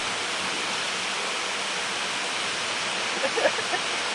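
Steady rushing water of a waterfall, an even wash of noise with no break.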